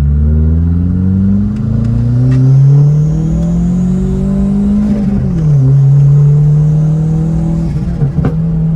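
Turbocharged 1.0 VW Gol G6 engine pulling under acceleration, its pitch climbing steadily for about five seconds. The pitch then drops sharply and holds steady at a lower engine speed.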